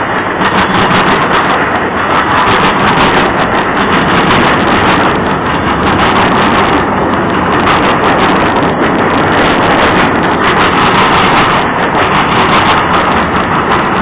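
Freight cars of a passing mixed freight train rolling by close at hand: a steady, loud rumble of steel wheels on the rails.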